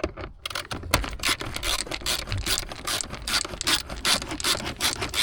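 Rapid, irregular clicking and scraping of hand tools on metal and plastic dashboard parts as the dash fasteners are worked loose, starting about half a second in.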